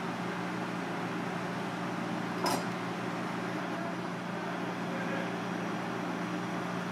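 Steady mechanical hum and hiss in a kitchen, with one sharp clack about two and a half seconds in as a kitchen knife is set down on the plastic cutting board.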